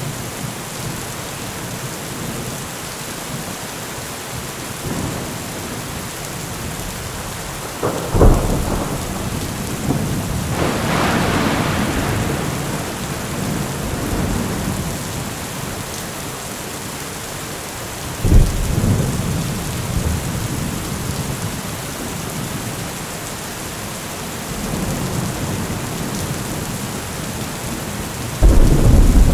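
Heavy rain falling steadily, with thunder: a sharp thunderclap about a quarter of the way in followed by a long rolling rumble, another clap a little past halfway, and a loud crack near the end.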